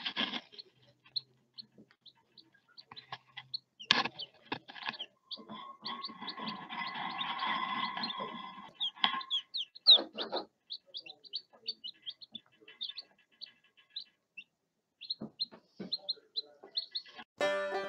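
Lavender Ameraucana baby chicks peeping, with many short high chirps, while pecking at food. There is a stretch of rustling about six to nine seconds in and a couple of sharp knocks, the louder one about ten seconds in; banjo music comes in just before the end.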